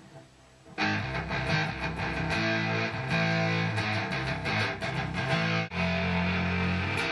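Electric guitar played loud through an amplifier, starting about a second in with a picked riff of sharp note attacks. It breaks off briefly near the six-second mark, then comes back on a held chord.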